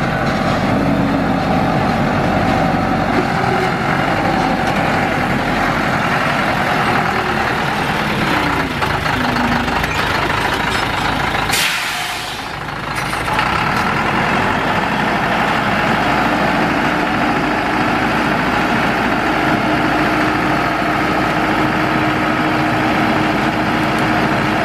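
Thaco Forland dump truck's diesel engine running steadily. From about two-thirds in, a steady whine joins as the hydraulic hoist tips the loaded bed.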